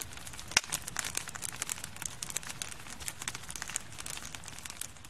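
Wood fire burning, crackling with dense, irregular snaps and pops, one louder pop about half a second in.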